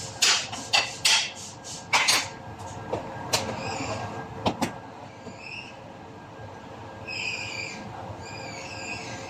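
Hammer striking sheet metal against a dolly: a quick run of sharp taps in the first two seconds, then a few single strikes. After that the strikes stop and only faint high chirps are heard.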